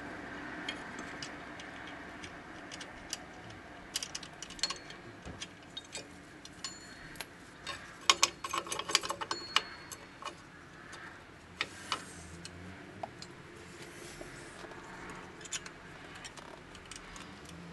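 Small metal clicks and clinks, scattered and irregular, with a dense run of them about eight to nine and a half seconds in. They come from the shoes, springs and hardware of a 2016 Nissan Sentra's rear drum brake being worked by hand against the steel backing plate.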